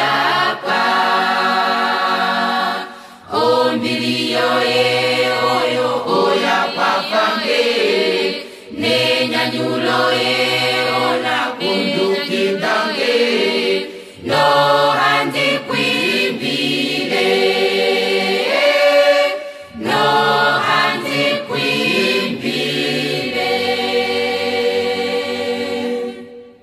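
A choir singing a Christian song in Oshiwambo, in long phrases with short breaks for breath about every five to six seconds. The final chord is held and fades out near the end.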